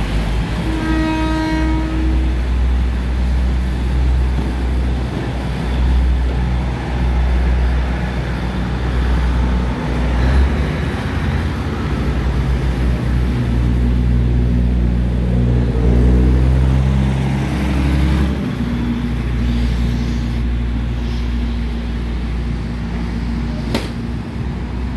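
Diesel railcar train running along the platform, its engine a heavy deep rumble, with one short horn blast about a second in. Later a second diesel railcar comes toward the platform and its engine note rises for a while and then holds steady.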